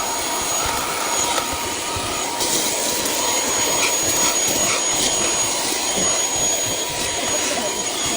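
Small cordless handheld vacuum cleaner running steadily: an even rushing of air with a thin, steady high-pitched motor whine.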